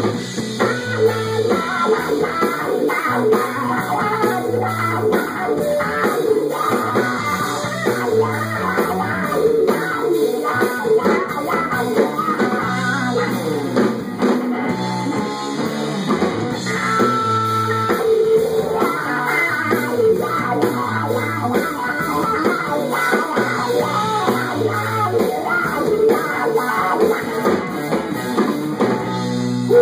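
Live rock band playing a passage between verses: guitar over a repeating bass line and drum kit.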